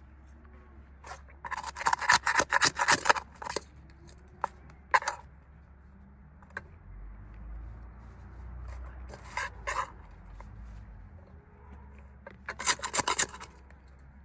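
Rapid rasping, scraping strokes in several bursts: the longest about two seconds in, a short one near the middle, and another burst near the end.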